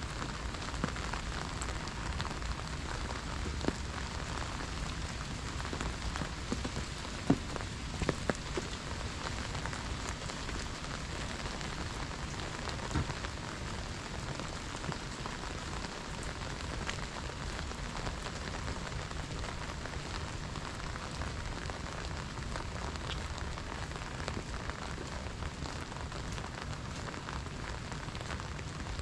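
Steady rain falling on wet stone paving, an even hiss with a few louder taps about seven to eight seconds in.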